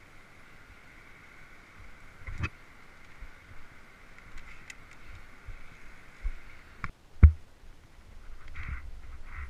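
A few sharp knocks and thumps of handling on a via ferrata: hands and gear against the steel safety cable and rock, the loudest about seven seconds in. Under them a faint steady hiss fades out by about halfway.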